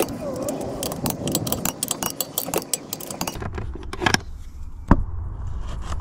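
Ratchet wrench clicking rapidly while a car's wheel bolt is tightened. About halfway through this gives way to a low steady rumble with a couple of sharp plastic clicks as a dashboard trim flap is opened and an OBD adapter is plugged in.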